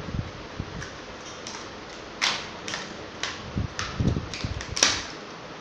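Irregular plastic clicks and knocks from a child's pink toy beauty-set case and its moulded plastic trays being handled, the sharpest about two seconds in and near the end, over a steady background hiss.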